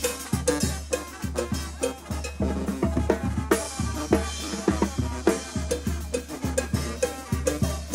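Live Mexican banda music: tambora bass drum and cymbal strikes on a steady beat over a sousaphone bass line and brass.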